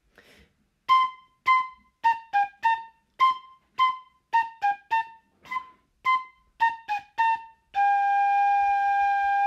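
Recorder playing the phrase B, B, A-G, A three times in a steady pulse, with short tongued notes, then a long held G in the last two seconds.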